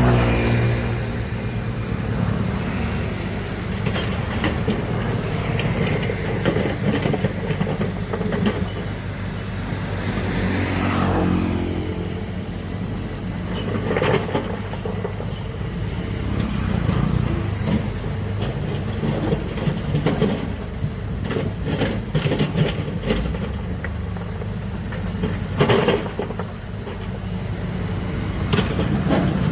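Heavy diesel machinery running steadily, with a few sharp metallic clanks and knocks.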